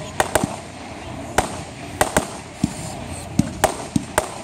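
Fireworks bursting overhead: a string of about ten sharp bangs and cracks at uneven intervals.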